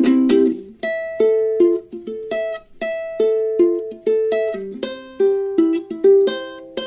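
Solo ukulele: a strummed chord, then a picked single-note melody of separate plucked notes, ending on one ringing note.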